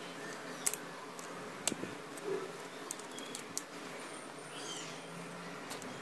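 Scattered small clicks and taps of plastic and metal as an opened CFL bulb's plastic housing and circuit board are handled and worked with needle-nose pliers.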